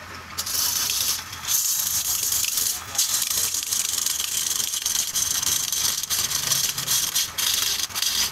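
Turning gouge cutting into a block of wood spinning on a lathe: a steady hissing of shavings being peeled off, broken by a few short pauses as the tool eases off the wood.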